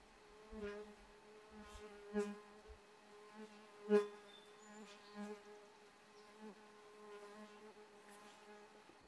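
A flying insect buzzing, swelling and fading several times as it passes close, loudest about four seconds in.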